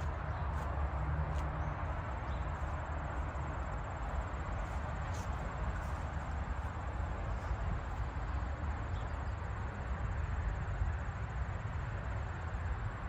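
Outdoor ambience: a steady low rumble and hiss, with a faint continuous high-pitched insect trill.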